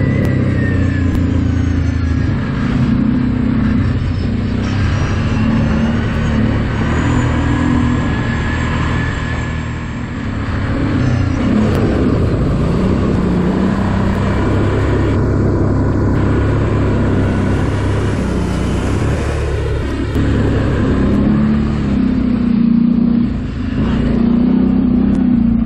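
All-terrain vehicle engine running under changing throttle, its pitch rising and falling again and again as it revs and eases off.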